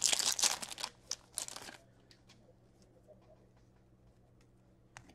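A stack of glossy trading cards shuffled and slid against one another in the hands, a quick papery rustle of many short strokes that stops about two seconds in. A faint steady hum remains after it.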